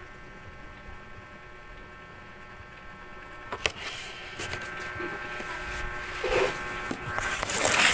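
Steady electrical hum with a single sharp click about three and a half seconds in. A rush of noise builds near the end and is the loudest part.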